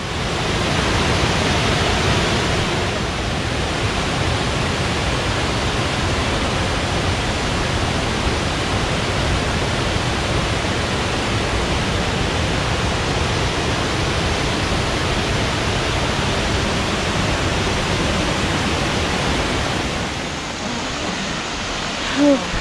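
Steady rushing roar of a waterfall pouring over granite ledges, heard close up. It eases slightly near the end.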